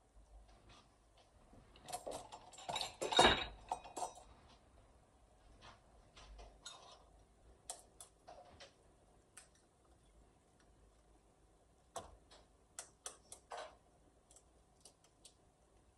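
Eggs cracked against the rim of a small ceramic bowl, with a cluster of sharp cracks and clicks about three seconds in. Near the end a fork taps and clinks against the bowl as the eggs are beaten.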